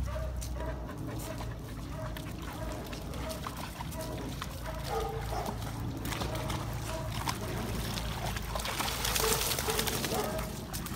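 Dogs playing and splashing through shallow water in a plastic kiddie pool and muddy puddles, with short high whines repeating every half second or so. About nine seconds in comes a burst of spraying water as a wet dog shakes itself off.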